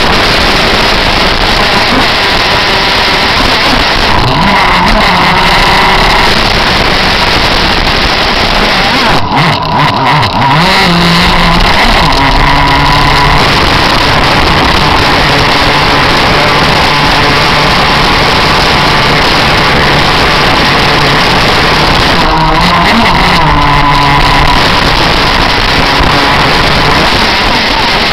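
Onboard sound of an RC jet boat's Zenoah two-stroke petrol engine running hard, loud and close, over the hiss of water rushing past the hull. The engine note dips and climbs again three times as the revs change.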